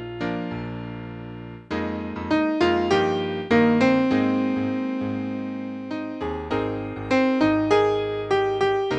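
Piano accompaniment playing a series of struck chords that each fade, with one chord held longer about midway; no singing.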